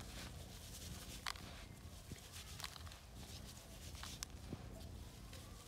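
Gloved hands scooping and turning damp dairy meal on a silver plastic sheet: faint rustling and crunching, with a few sharp crinkles of the sheet.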